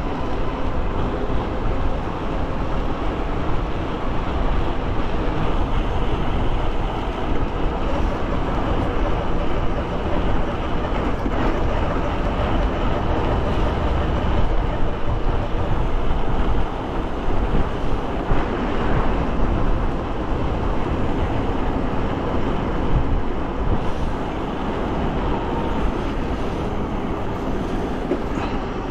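Steady wind rumble on the microphone of a moving e-bike, over the hiss of tyres on wet pavement.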